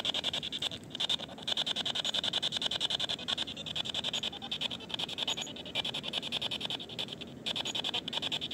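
P-SB7T Spirit Box sweeping through FM radio stations: rapid, regular chopping of radio static and clipped broadcast fragments, with a hissy band high up.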